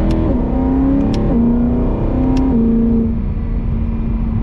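BMW car engine pulling under load, its pitch rising and then dropping sharply at an upshift right at the start and again about a second later, then holding steady at a cruising pitch. Three sharp clicks sound over it.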